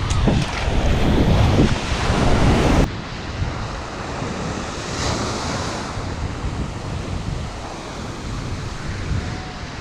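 Ocean surf washing on the beach, with wind buffeting the microphone. The wind rumble is heavy for the first three seconds, then drops away suddenly, leaving steadier, quieter surf.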